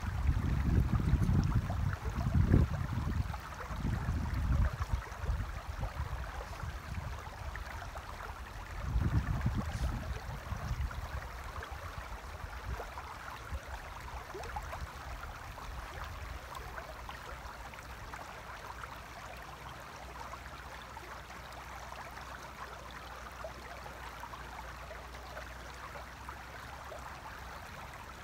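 Shallow river running over stones, a steady rushing. Low rumbling gusts of wind on the microphone come in the first few seconds and again about nine seconds in, then fade.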